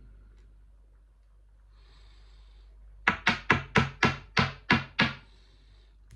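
A short scraping hiss, then nine quick, sharp knocks, about four a second, as the Kaba 20 padlock is rapped against the work board to shake out pins still stuck inside it.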